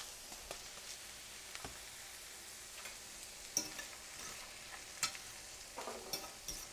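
Thin asparagus spears sizzling in hot oil in a frying pan, a steady faint hiss, with a few sharp clicks against the pan about three and a half and five seconds in.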